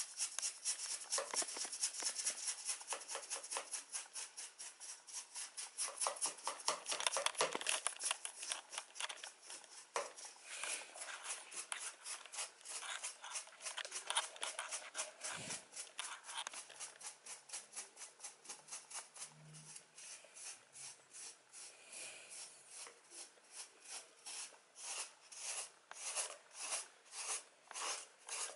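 A cat's coat being combed out with the edge of an empty tissue case, in quick, rhythmic scraping strokes that are slower and more spaced near the end.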